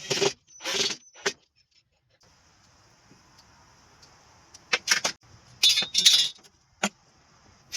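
Short clatters and clinks of tools and hardware being handled during woodworking assembly. They come in two groups, three quick ones at the start and a handful more after a pause of a few seconds.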